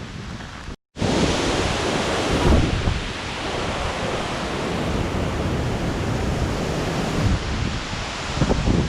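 Hurricane-force wind gusting hard and buffeting the microphone in uneven surges. The sound drops out completely for a moment a little under a second in, then comes back louder.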